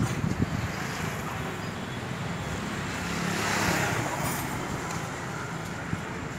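Steady motor-vehicle and traffic noise with a low engine hum, swelling for a second or so about three to four seconds in.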